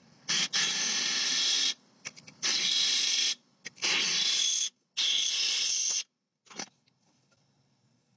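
Cordless drill boring out holes in a metal ruler, running in about five short bursts of about a second each with a high, grinding whine, then stopping about six seconds in.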